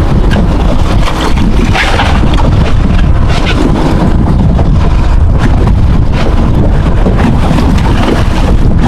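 Strong wind hitting the microphone on an open boat at sea: a loud, constant low buffeting with irregular gusty crackles.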